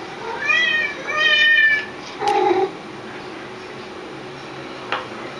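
A cat meowing twice, each meow rising and then falling in pitch, followed about two seconds in by a shorter, lower meow. A soft click comes near the end.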